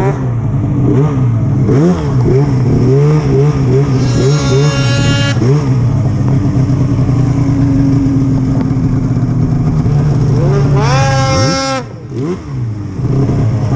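Two-stroke snowmobile engine under way, the throttle worked up and down in quick repeated surges, then held steady. Near the end it revs up hard, drops away briefly, and picks up again.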